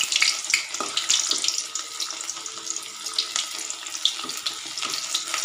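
Cornflour-coated paneer cubes sizzling and crackling in hot oil in a kadhai, with a few light knocks of a metal ladle against the pan. The sizzle is loudest in the first second and settles to a softer, steady frying after.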